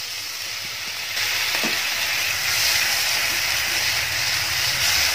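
Chilli masala thinned with water sizzling in a hot non-stick frying pan as it is stirred with a slotted spatula. The steady hiss grows louder about a second in.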